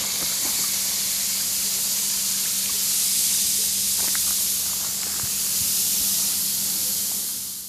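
Steady hiss of steam boiling off a hot raku-fired ceramic piece as it is lifted out of its quench water with tongs. A couple of faint clicks come about four seconds in.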